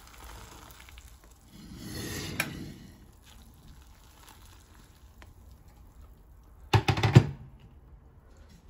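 Boiling water poured from a glass pot onto dry ramen noodles in a frying pan, a soft splashing pour that swells about two seconds in. About seven seconds in comes a short clatter of cookware, the loudest sound.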